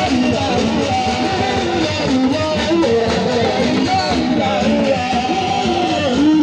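Music with plucked guitar and a singing voice carrying a wavering melody.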